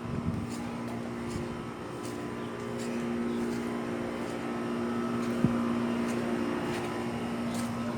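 A steady motor drone running at an even pitch, with faint ticks above it.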